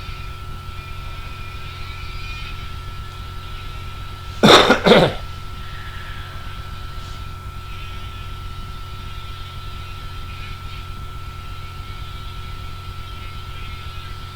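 A person coughs twice in quick succession about four and a half seconds in, over a steady electrical hum with a constant high whine.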